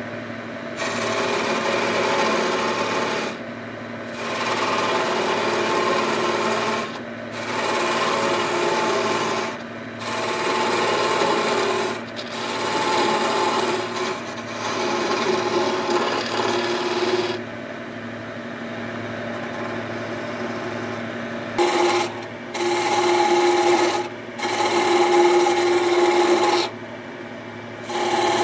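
Wood lathe spinning a fir blank while a hand-held turning tool cuts it, a rough shaving sound in about eight passes of a few seconds each with short breaks between. The lathe's steady hum carries on under the cuts and through the breaks.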